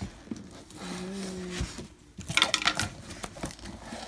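Cardboard shipping box being pulled open: packing tape tearing and the flaps scraping and crinkling in a loud flurry about two seconds in. A brief low hum comes just before it.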